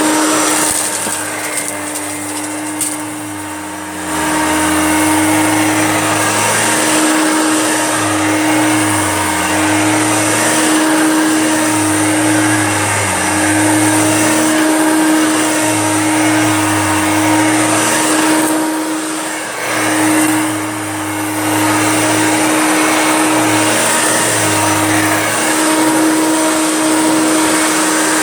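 Hoover Junior upright vacuum cleaner running steadily with a motor whine, pushed back and forth over a thick-pile faux fur rug. It gets louder about four seconds in and briefly drops in level a couple of times later on.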